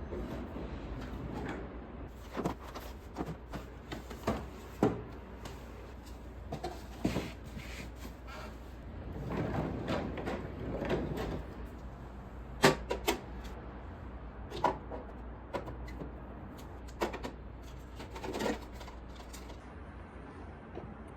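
Scattered knocks and clicks of household things being handled, like cupboard doors or objects set down, with a rustle partway through, over a steady low hum.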